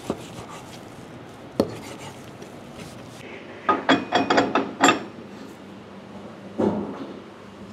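A cleaver chopping meat on a wooden board, two chops about a second and a half apart. Then a quick run of ringing metal clinks and scraping as the perforated cutting plate on a metal meat grinder's head is handled, and a duller thump near the end.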